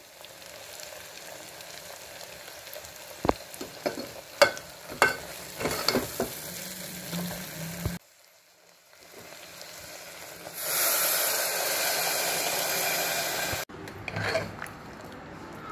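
A steel spoon stirring chickpeas in an aluminium pressure cooker pot, knocking and scraping against the metal now and then. After a cut, a loud steady hiss runs for about three seconds and then stops abruptly.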